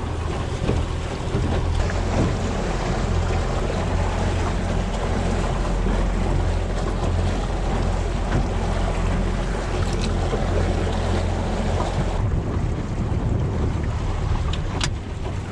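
Small Honda outboard motor running steadily at trolling speed, a low hum under water rushing past the aluminium hull and wind buffeting the microphone.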